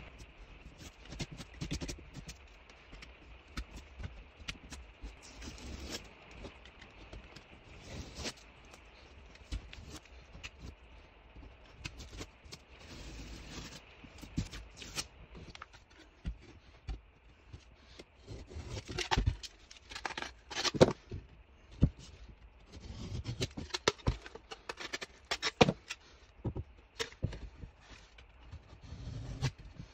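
Utility knife scraping and scoring drywall, with the paper facing being peeled and torn off the gypsum around a hole: irregular scratching and tearing, with louder, sharper scrapes in the second half.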